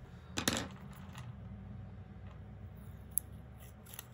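Glittery washi tape being pried up and peeled off its roll: one short rasping rip about half a second in, a weaker one soon after, then a couple of small clicks of handling.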